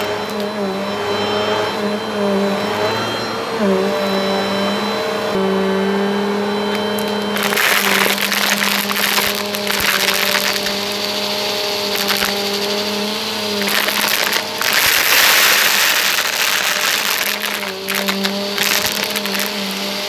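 Bissell upright vacuum cleaner running with a steady motor whine that dips in pitch briefly about four seconds in. From about a third of the way in, plastic beads rattle and clatter loudly as the head sucks them up.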